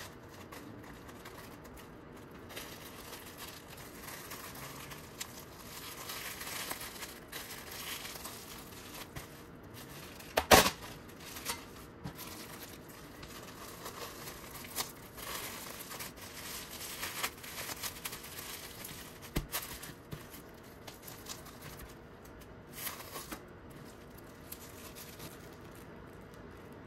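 Crinkling and rustling of a thin wrapping sheet as a filled tortilla wrap is rolled up and wrapped tightly by hand, with a single sharp knock about a third of the way in.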